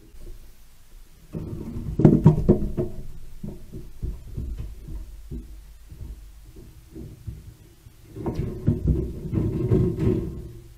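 Brushtail possums moving on a corrugated metal roof: bursts of low thumping and scrabbling, a loud cluster about two seconds in and another near the end.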